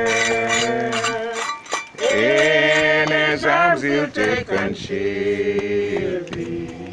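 People singing together unaccompanied, slow phrases of long held notes with short breaks between them.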